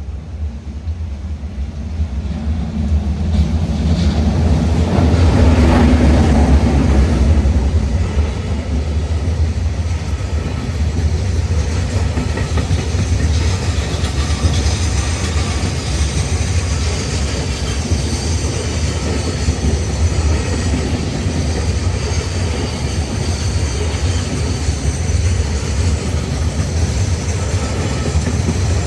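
JR Freight container train passing at speed behind an EF210 electric locomotive: the sound builds to its loudest about five to seven seconds in as the locomotive goes by. The long line of container wagons follows with a steady clatter of wheels over the rails.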